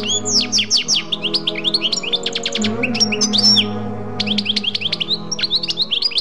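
Many quick bird chirps and twitters over a soft sustained musical drone of low held tones, the pitch of the drone shifting now and then.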